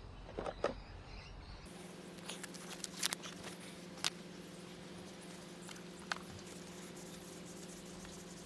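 Faint, scattered light clicks and small rubbery squeaks from hands at work, over a steady low hum that comes in suddenly about two seconds in.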